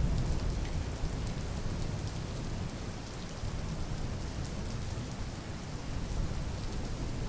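Steady rain falling, with scattered drops ticking, under a low thunder rumble that eases off over the first few seconds.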